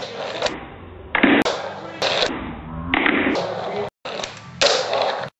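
A handboard, a small skateboard worked by hand, knocking and rolling on a hardwood floor, with a few separate clattering impacts as it is flipped and lands.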